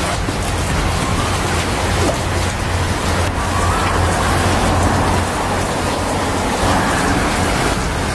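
Steady rain falling on leafy foliage: a dense, even hiss with a low rumble underneath.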